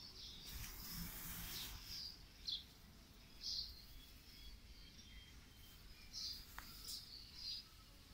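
Faint, scattered chirps of small birds, short high calls a few times over several seconds, over low background noise. A brief hiss rises about half a second in and fades by about two seconds.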